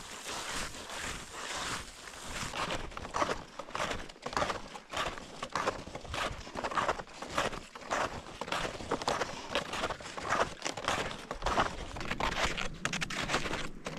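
Snowshoe footsteps crunching in snow, a quick, steady walking rhythm.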